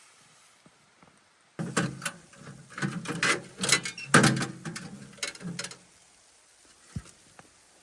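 A clatter of handling noises, a quick run of clicks, knocks and rustles, starting about one and a half seconds in and lasting about four seconds, then one more single knock near the end.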